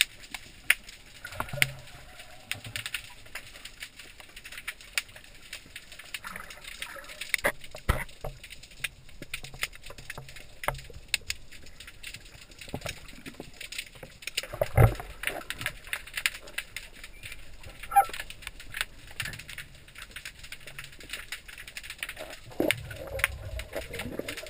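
Underwater sound picked up by a GoPro in its sealed housing: many scattered sharp clicks and knocks over a faint water hiss, with one louder low thump a little past halfway and a low rumble of moving water near the end.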